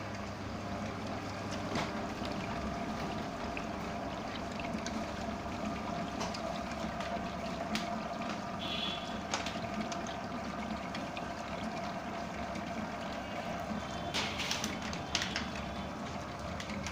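Electric bakery mixer running steadily with a constant hum and whine, with a few short clatters.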